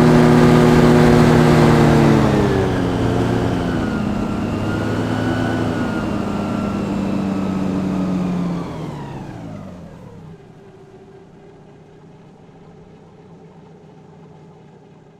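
Hovercraft engine and propulsion fan being throttled back from high power: loud at first, it drops in pitch a couple of seconds in, holds, then winds down near the middle to a quiet, low steady idle as the craft almost stops.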